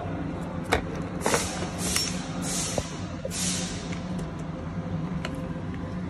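Sharp plastic clicks and rustling as gloved hands handle a Renault Trafic rear door lock and its metal linkage rods, over a steady low hum. Four clicks come in the first three seconds, with bursts of rustling between them.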